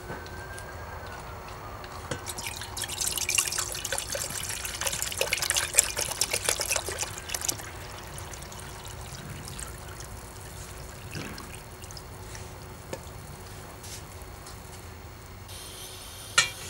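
Green liquid poured from a plastic bottle into an enamel mug, splashing for about five seconds. Near the end, a single sharp clink as the mug is set on a gas camping stove burner.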